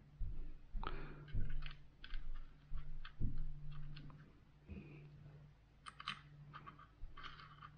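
Small metal parts handled on a bench mat: irregular clicks and taps of screws and a rifle scope mount, with a few dull knocks.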